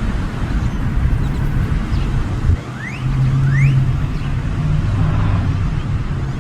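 A motor vehicle's engine running close by, a steady low rumble, with two short rising bird chirps about three seconds in.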